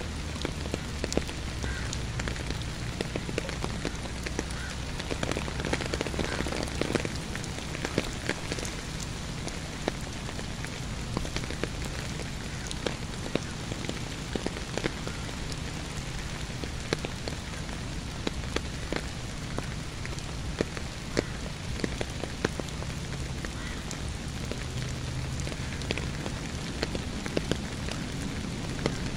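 Steady rain falling on a wet path, grass and lake water, with many sharp taps of single drops landing close by and a low steady rumble underneath.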